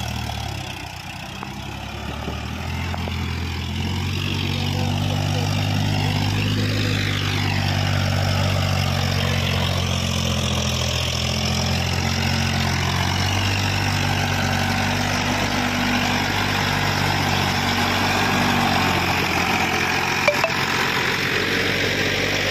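Eicher 551 tractor's diesel engine labouring under load as it hauls a trolley full of sand up out of a pit. It grows louder over the first four seconds, then runs at a steady low hum.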